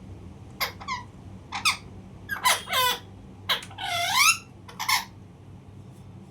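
A parrot giving a quick series of short, squeaky calls that sweep in pitch, the longest one dipping then rising about four seconds in.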